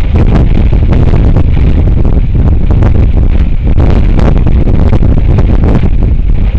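Strong wind buffeting the microphone: a loud, steady low rumble broken by irregular gusty crackles.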